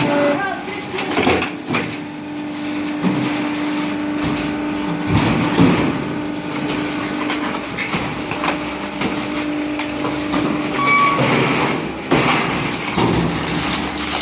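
High-pressure can press machine running, its motor humming steadily, with irregular metallic knocks and clatter over it.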